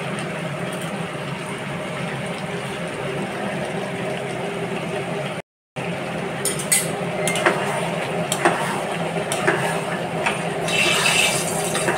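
A steady hum over a simmering chicken curry. From about six seconds in, a spatula clinks and scrapes against the nonstick pan as the chicken pieces are stirred, with a longer, louder scrape near the end.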